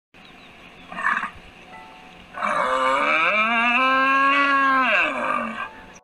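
Cow mooing: one long call lasting about three seconds that rises in pitch at the start, holds, then falls away at the end. A shorter sound comes about a second before it.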